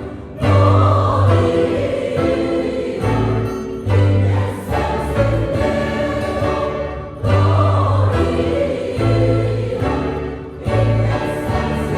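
Choir singing a Vietnamese sacred song with a strong low bass, in held phrases that start afresh every three to four seconds.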